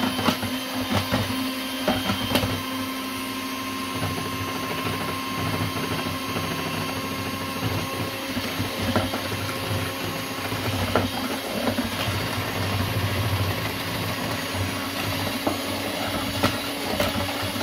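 Cookworks electric hand mixer running steadily, its beaters whisking a creamy mixture in a plastic bowl, with a steady motor hum and occasional short clicks.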